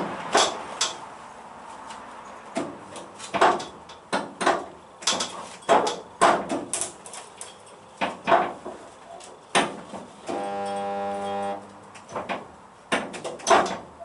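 Uneven sharp knocks of tools on the Mini's sheet-steel body panels during bodywork, with a steady electric buzz for about a second near the end.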